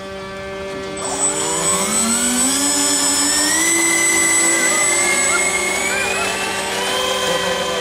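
Radio-controlled Airbus A380 model's four engines spooling up for the take-off run: a whine that starts about a second in and climbs steadily in pitch, several tones rising together.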